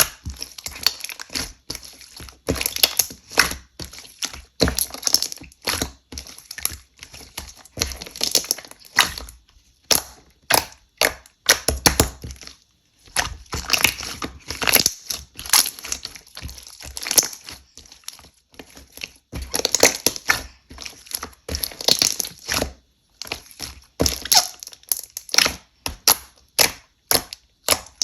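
Hands playing with a glue-based slime, a steady run of sharp clicks, pops and crackles as it is squeezed, pressed and folded, with brief pauses now and then.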